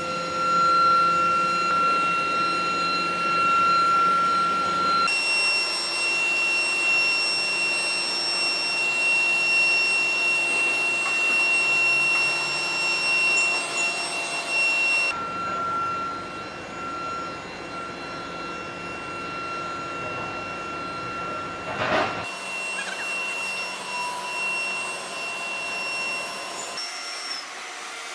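Pipe-elbow factory machinery running: steady mechanical noise with high-pitched electrical whines from the heating and forming equipment. The mix changes abruptly a few times, and there is a brief sharp noise about three-quarters of the way through.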